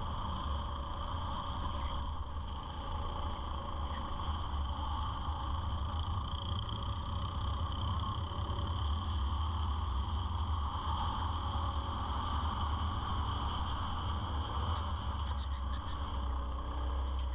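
Go-kart engine running steadily at racing speed, heard from an onboard camera, with a constant low rumble beneath it.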